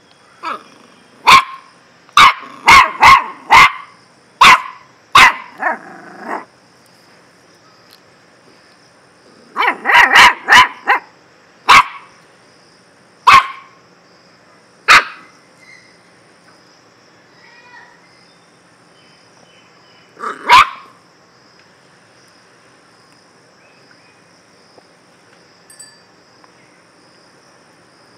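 A puppy barking in short, sharp, high yaps: a quick run of several barks, a tight cluster about ten seconds in, then single barks spaced a second or more apart, dying away to quiet for the last several seconds.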